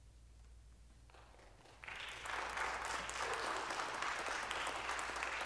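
A hushed pause with a faint low hum, then audience applause starting about a second in and building to full clapping at about two seconds.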